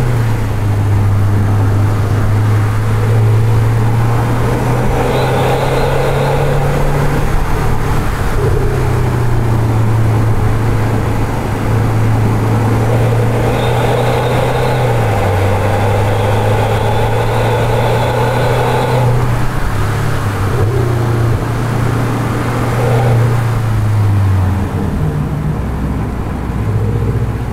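STI performance muffler on a Subaru SK5 Forester's 1.8-litre turbocharged flat-four, with the uneven-firing boxer rumble, as the car is driven hard around a track. The engine note holds, then steps up and down in pitch several times as the car accelerates and shifts, and eases off near the end.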